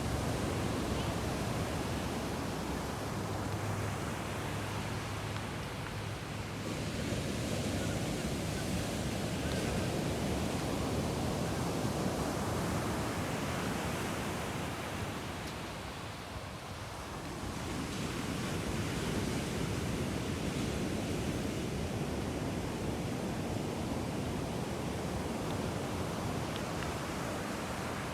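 Ocean surf breaking on a beach: a continuous wash of waves that swells and ebbs slowly, easing off briefly about halfway through before building again.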